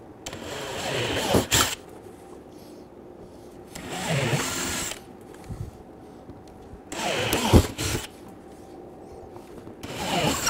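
DeWalt 20V MAX XR brushless cordless drill with a 5/16-inch bit, boring through the closed plastic-shelled top-case lid along existing pilot holes. It runs in four short bursts a few seconds apart.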